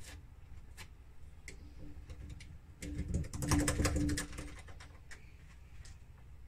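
Metal doorknob hardware clicking and rattling as it is handled, with single clicks here and there and a dense run of rapid clicks about three seconds in, over a low steady hum.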